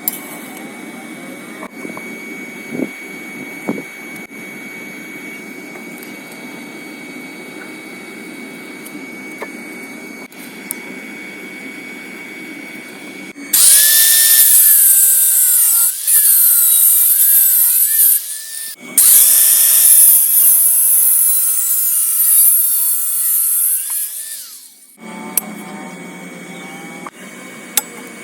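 Angle grinder cutting metal: after a low steady hum, the grinder starts about halfway through and runs loud and hissing, its motor pitch sagging and wavering under load. It pauses briefly twice, then stops a few seconds before the end.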